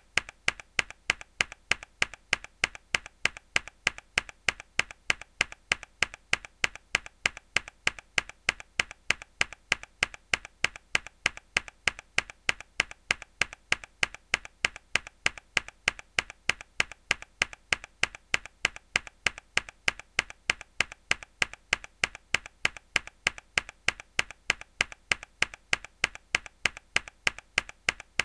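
Mechanical keyboard key pressed hard, repeated as a steady stream of sharp clicks, about three a second.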